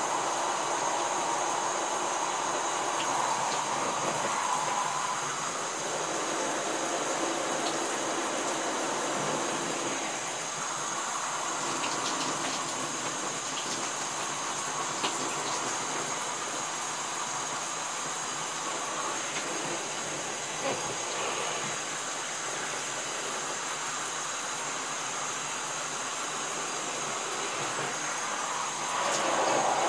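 Shower water running steadily, spraying onto soaked denim jeans and into a bathtub, a little louder near the end.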